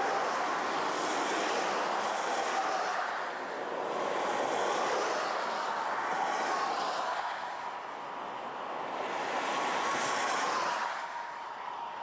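Cars driving through snow on a highway: a steady rush of tyres on the snowy road, swelling as about four cars pass in turn, with a faint whine running under it.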